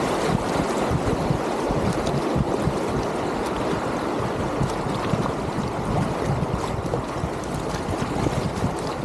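Shallow river rapids rushing and splashing over stones close to a packraft at water level, with wind buffeting the microphone.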